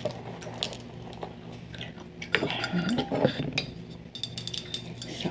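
Close-miked light clicks and clinks of bangle bracelets and a plastic spray bottle being handled, over steady gum chewing. A louder, short sound that bends in pitch comes about halfway through.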